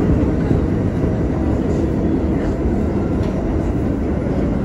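R68 subway car running on the track, heard from inside the car: a steady low rumble of wheels and motors, with a few faint clicks.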